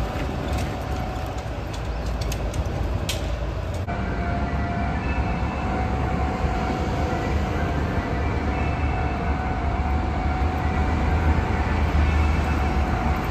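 Train running on the rails with a steady low rumble and a held tone over it; the sound changes suddenly about four seconds in.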